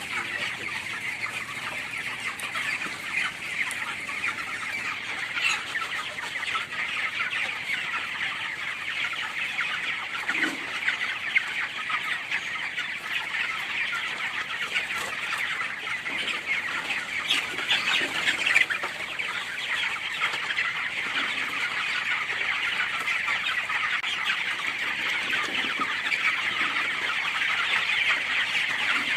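A large flock of young broiler chickens, about 20 days old, keeps up a steady din of overlapping cheeping and clucking.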